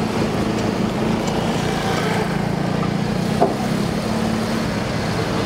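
Steady city street traffic noise under a constant low hum, with a single sharp click about three and a half seconds in.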